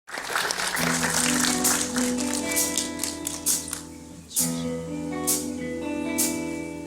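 Pop-jazz orchestra playing the instrumental introduction of a song: sustained chords with a light repeated beat. The chords break off briefly about four seconds in, then start again.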